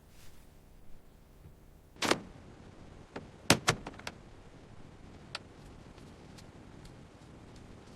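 A dull thud about two seconds in, then a series of sharp mechanical clicks: two loud ones in quick succession about a second and a half later, followed by a few fainter ticks.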